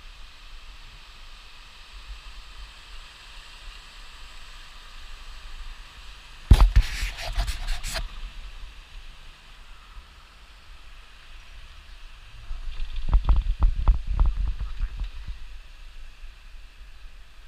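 Wind hissing on a point-of-view camera's microphone during a chairlift ride. About six and a half seconds in there is a loud burst of scratching and rubbing on the microphone lasting about a second and a half. Later, around thirteen to fifteen seconds in, a cluster of low thumps like wind buffeting.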